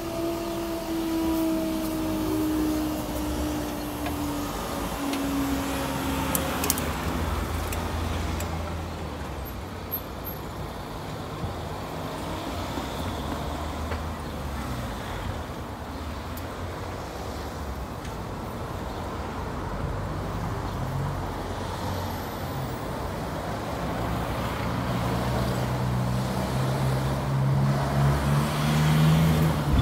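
Class 395 high-speed electric train moving away past a level crossing, its whine sliding down in pitch and fading over the first few seconds, leaving a steady rumble. Near the end a low drone grows louder as another Class 395 approaches.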